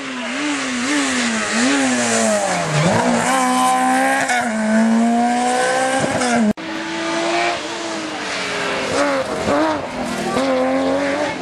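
Rally car engines at high revs, the pitch climbing and dropping again and again with gear changes as a car drives a stage. The sound breaks off abruptly about six and a half seconds in, and a second rally car's engine revving hard takes over.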